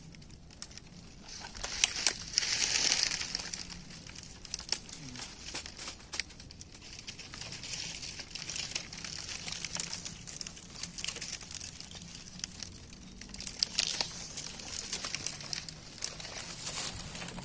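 Dry palm fronds rustling and crackling as hands push through and pull at them, full of small snaps and clicks, with louder bursts about two seconds in and again about fourteen seconds in.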